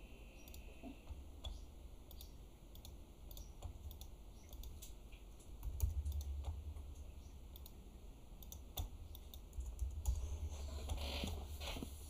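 Computer keyboard keys and mouse buttons clicking in scattered, irregular taps while someone types and clicks through settings, over a low steady hum.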